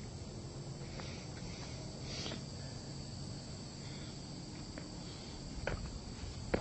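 Steady high-pitched drone of insects over a low rumble, with a few light knocks, one near the start and a couple near the end.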